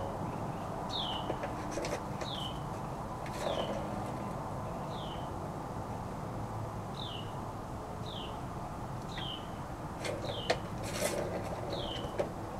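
A songbird repeating a short, falling whistled note about once a second, with a few light knocks near the end.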